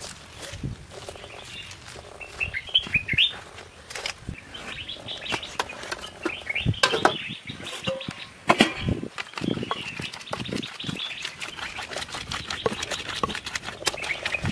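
Wooden pestle knocking and scraping in an earthenware grinding bowl in quick irregular strokes as a paste is ground, with birds chirping in the background.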